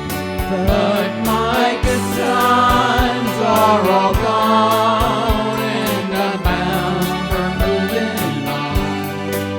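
Country band playing, with a steady beat of about two strokes a second under a wavering melodic lead line.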